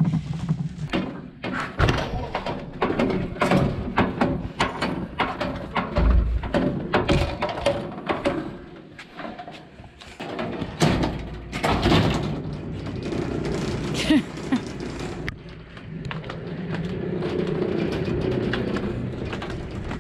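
Hand trolley rattling and clunking as it is pushed over brick paving, its load of batteries and a bucket knocking about, with scattered thuds.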